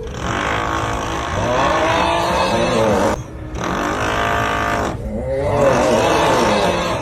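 The 'Uuuuuugghhhhh' snoring meme sound: a long, drawn-out groaning voice sliding up and down in pitch, repeated with short breaks about three and five seconds in, over a continuous drilling noise.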